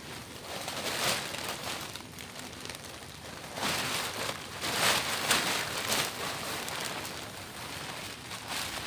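Blue plastic tarp being shaken out and folded, the sheet crinkling and rustling in irregular swells, loudest around the middle.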